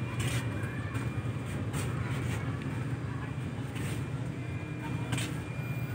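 Steady low rumble of a parked intercity bus idling with its air conditioning running, heard from inside the passenger cabin.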